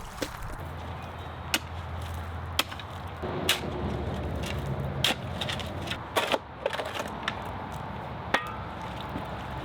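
Rotten wooden bridge boards being knocked loose and tossed while the bridge is torn down: about six separate sharp wooden knocks and cracks, over a steady low hum.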